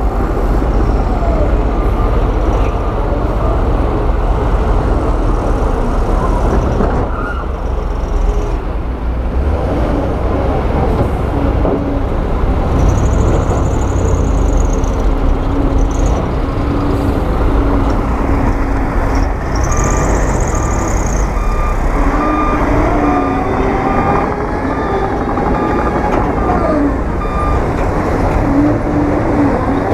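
Heavy earthmoving machinery, bulldozer and dump truck engines, running steadily loud, with a whine that glides slowly up and down in pitch. Two short high squeals come near the middle.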